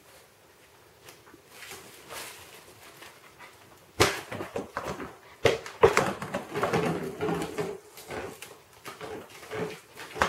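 Husky puppy whimpering and yapping during rough play, mixed with knocks and scrapes of a plastic tub on a tile floor. It starts quietly and turns loud and busy about four seconds in.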